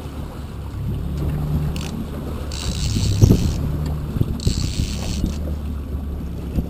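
Boat engine running steadily at trolling speed, with a fishing reel being cranked in short bursts every couple of seconds as a hooked fish is reeled up to the boat. A few knocks about halfway through.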